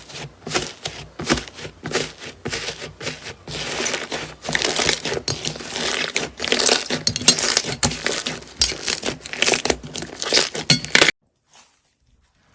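Hands squeezing and poking slime, making a dense run of crackling, clicking pops that grow busier in the middle and stop suddenly near the end.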